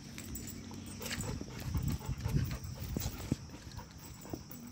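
A Rottweiler walking on a metal chain leash along a paved road, with footsteps, scuffs and scattered clinks. A low steady hum stops about a second in.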